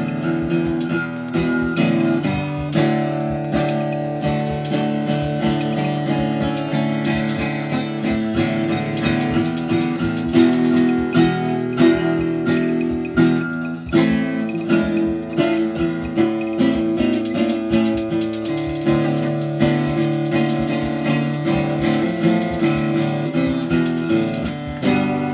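Guitar music: plucked and strummed chords played continuously, without singing.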